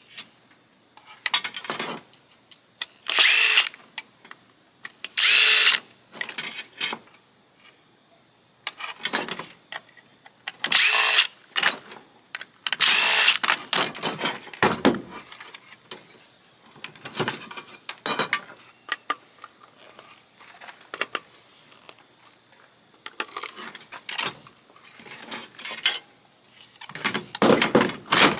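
Cordless drill-driver running in about five short bursts as screws are backed out of an oscilloscope's chassis, with clicks and clatter of screws and small metal parts between the bursts.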